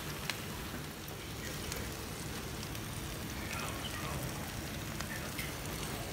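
Ribeye steaks sizzling on a grill grate beside the glowing embers of a homemade double-barrel wood burner: a steady hiss with scattered pops and crackles.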